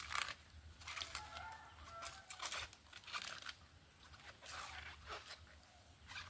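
Outer leaves being torn and snapped off a head of cabbage, a run of crisp crackling rips. A chicken clucks a few times in the background about a second or two in.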